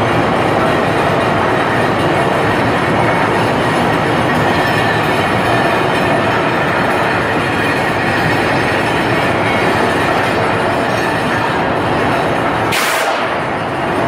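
Electric furnace charge feeder running: a loud, steady mechanical rumble and rattle, with a brief falling squeal about a second before the end.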